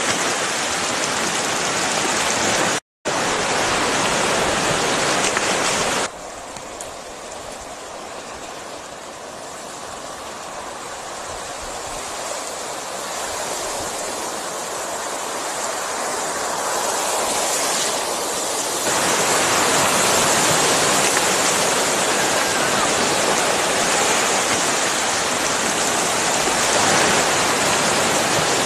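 A dense school of mullet splashing and churning at the water's surface: a steady, rain-like rushing hiss of countless small splashes. It cuts out for a moment about three seconds in, drops quieter about six seconds in, and slowly builds back up.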